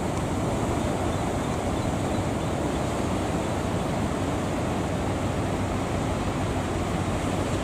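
Steady rushing noise of surf breaking at a river-mouth estuary, unbroken throughout.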